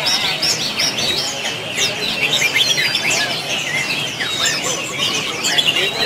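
Many caged songbirds singing at once: a dense, unbroken tangle of quick, high chirps and short whistled phrases overlapping one another.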